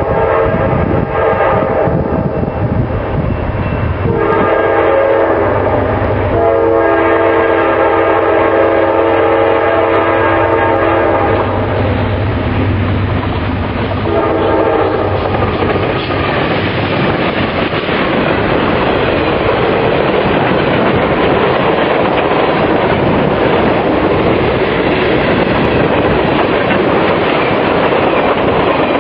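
Norfolk Southern diesel locomotive horn sounding a chord in long blasts: one about four seconds in, a longer one right after, and a short one near the middle, over the low drone of the engine. The train then rushes past with heavy rail and wheel noise, and strong wind buffets the microphone.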